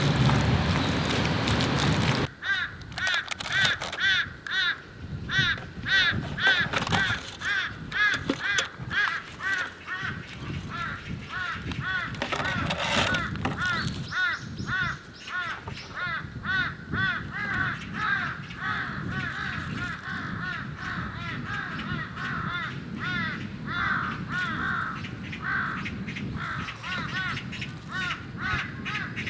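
Loud rain-like noise that cuts off about two seconds in, followed by birds calling over and over, several short arched calls a second, for the rest of the time.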